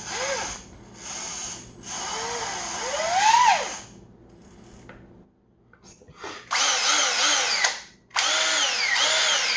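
A Milwaukee M18 cordless impact tool is run free with no load in about five trigger pulls, with a quiet gap midway. The motor whines up to speed and spins down each time, its pitch rising and falling with the variable-speed trigger.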